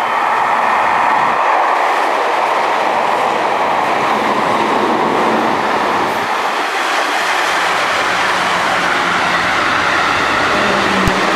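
Electric trains running along the track, with a steady loud rumble and wheels clattering over the rail joints. Near the end a low steady tone comes in and there is one sharp click.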